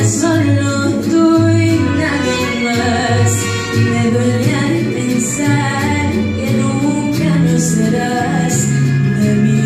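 A woman sings a Spanish-language song into a microphone over instrumental accompaniment, holding long notes that bend in pitch. Under her voice runs a steady bass line, with a light high tap about once a second.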